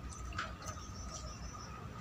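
Soft scattered clicks of eating and handling crispy fried chicken, over a steady faint high-pitched whine.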